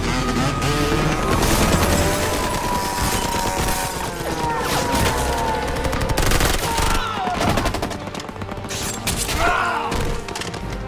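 Action-film soundtrack: rapid bursts of automatic gunfire and an explosion, with music underneath.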